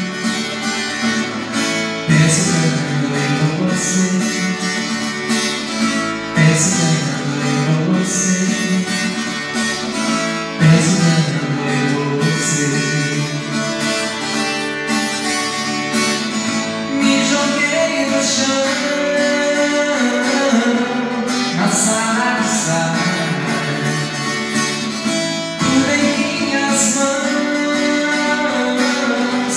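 Steel-string acoustic-electric guitar strummed in a steady rhythm, playing chords of a slow pop song through a microphone.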